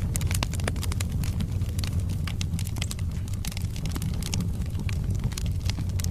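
Log fire burning in a fireplace: many irregular sharp crackles and pops of the burning wood over a steady low rumble of the flames.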